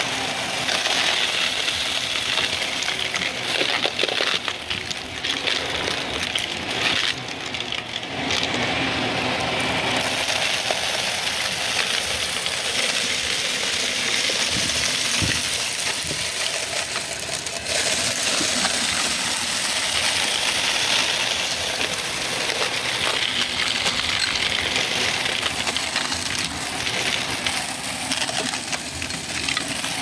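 Shark Navigator upright vacuum running while it sucks up a pile of debris from carpet: beads, pennies and small hard bits rattle and clink up through the nozzle and hose over the steady motor noise.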